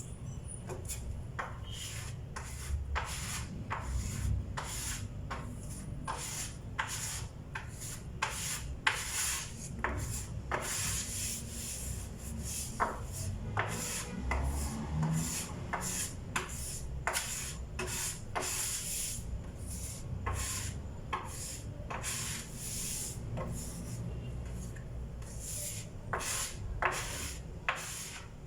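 Hand sanding on a wooden table: repeated scratchy rubbing strokes, about one or two a second.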